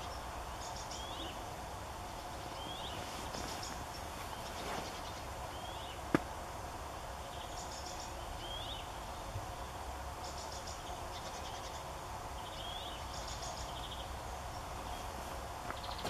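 Small woodland birds calling in the background: a short hooked chirp about every second and a half, with brief higher rattling trills between them, over a steady distant noise. A single sharp click about six seconds in.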